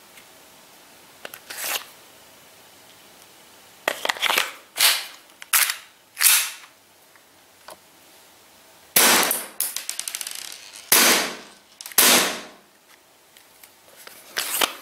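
APS ACP Glock-type CO2 gas blowback airsoft pistol firing a series of about seven sharp shots at uneven intervals, each report trailing off briefly as the slide cycles. A few faint clicks come just before the shooting starts.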